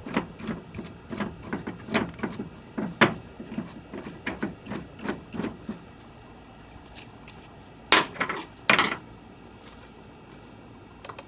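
Irregular small clicks and knocks of cleaned hose reel parts being handled on a work surface, then two short scraping or rubbing sounds about eight and nine seconds in.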